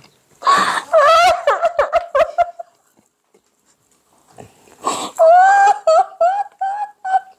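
People laughing hard in high-pitched, stuttering bursts: one bout about half a second in and a second, string of short squealing laughs from about five seconds in.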